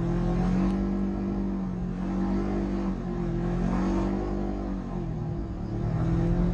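Polaris RZR 900 side-by-side's engine running under throttle, its pitch holding steady and then dipping and coming back up a few times as the throttle eases and reopens. Wind rumble on the microphone underneath.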